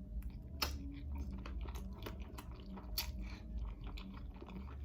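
Close-miked chewing of a hot chicken wing, with wet mouth smacks and small crunches and clicks scattered through.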